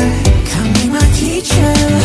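Background pop/R&B music with a steady beat and a sung melody.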